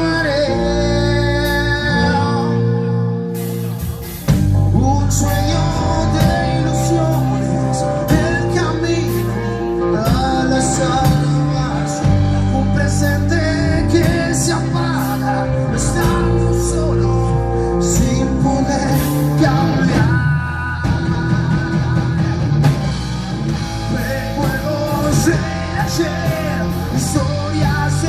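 Rock band playing a song with a male singer: a guitar passage of held chords gives way about four seconds in to the full band with drums, and singing carries on over it.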